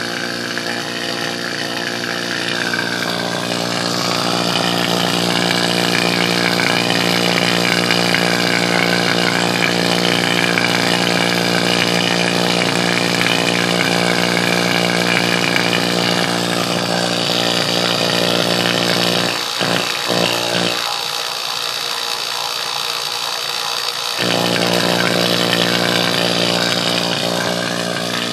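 Refrigeration vacuum pump running steadily, evacuating an air-conditioning system's refrigerant lines, with the vacuum already down to about 142 microns. A steady motor hum with a hiss over it; the low hum briefly drops out about two-thirds of the way through.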